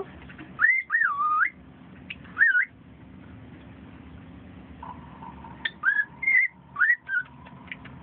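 Pet cockatiel whistling: short wavy phrases that glide up and down, a couple in the first two and a half seconds, then a pause, then more short whistles in the second half.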